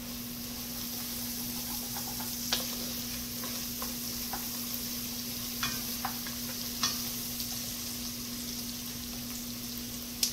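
Minced shallots and garlic sizzling steadily in oil in an enamelled cast-iron Dutch oven while a wooden spoon stirs them. The spoon makes several sharp knocks against the pot, over a steady low hum.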